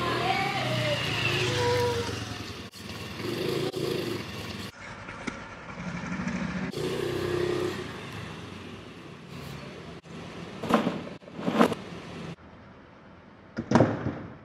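Motor scooter engine running at low speed, heard in several short clips joined by abrupt cuts, with a few voices early on. Three sharp knocks stand out near the end.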